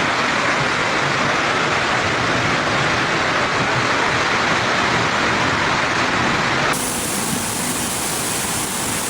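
Steady, loud rush of water with no clear rhythm. The sound changes abruptly about seven seconds in, where one flood clip cuts to another.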